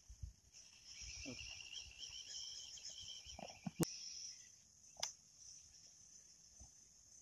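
Insects chirring steadily in a high-pitched band, joined by a lower buzzing chorus for the first few seconds. A sharp click comes about four seconds in and another a second later.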